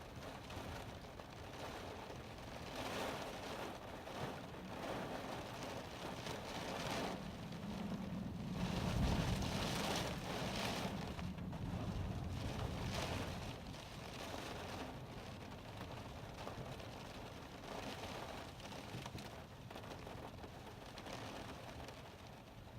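Storm wind and driving rain: a rushing noise that surges and fades in gusts, loudest around the middle.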